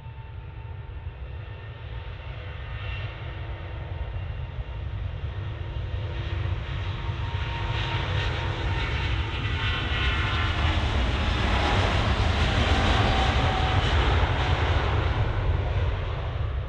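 Airbus A350-941 airliner's twin Rolls-Royce Trent XWB turbofans running as it rolls along the runway past, a deep rumble with a steady whine and hiss. The sound grows steadily louder to a peak about twelve seconds in, then eases a little as the aircraft moves away.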